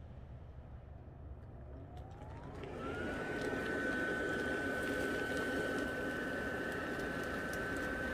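Blower fan of an inflatable Christmas lawn decoration starting up: its motor whine rises in pitch over about a second, then holds steady over a rush of air as the fabric inflates.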